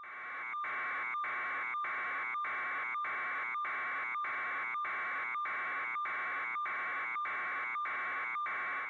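An electronic buzz pulsing about twice a second, fading in at the start and out at the end.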